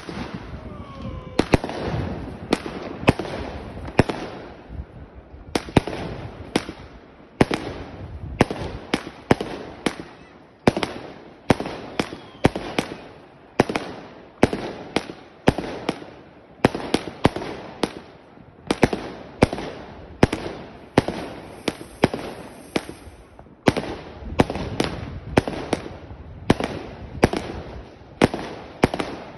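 Lonestar LS-F2-100-05 100-shot firework battery (brocade with strobes) firing in rapid sequence: a steady run of sharp bangs, about one to two shots a second.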